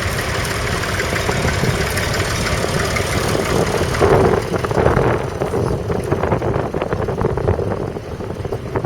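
A vintage tractor's engine running, growing louder about four seconds in.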